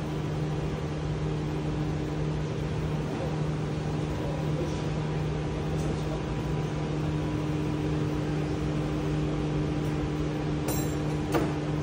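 Steady machine hum of constant pitch, like a running motor-driven fan or air conditioner, with one short click near the end.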